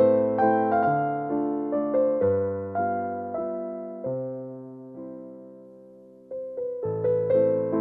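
Background music: soft electric piano playing slow chords and notes. It fades to a lull about two thirds of the way in, then picks up again near the end.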